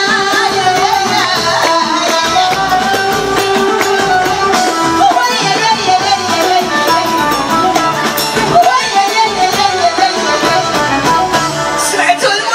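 Live Moroccan chaabi music: a woman singing over a band of instruments with percussion.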